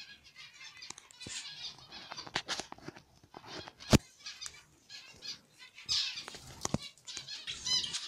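Budgerigars chirping and chattering in a colony cage, with a few light clicks and one sharp knock about four seconds in.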